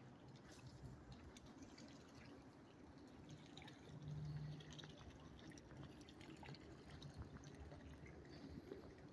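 Faint trickling and dripping of a small fountain spout in a garden reflection pool, with a brief low hum about four seconds in.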